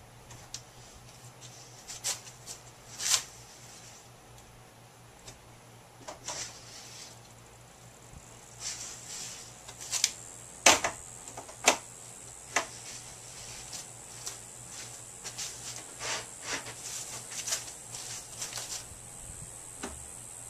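Plastic spreader scraping Bondo body filler onto the edge of a fiberglass panel: irregular short scrapes and clicks, with a few sharper ones about halfway through.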